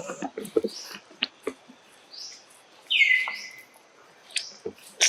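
Monkey giving high squeaks and chirps among scattered clicks, with one louder call about three seconds in that falls in pitch and then holds steady briefly.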